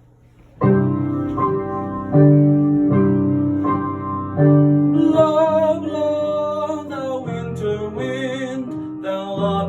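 Piano introduction of a classical art song: forceful repeated chords starting just after half a second in. About five seconds in, a trained classical voice with vibrato appears to enter over the piano.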